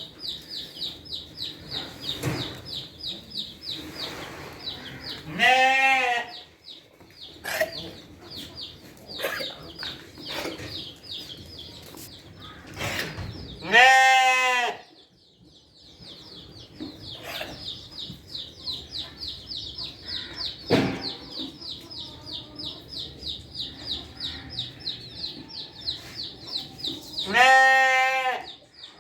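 A goat bleats loudly three times, each call about a second long and wavering, spaced several seconds apart. Behind it runs a steady, fast, high chirping at about four chirps a second.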